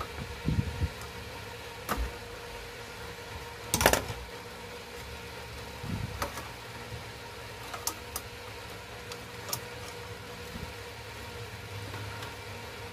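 Hands working wires inside a voltage stabilizer's sheet-metal case: scattered clicks, taps and rustles of wire and metal, with a louder knock about four seconds in, over a steady background hum.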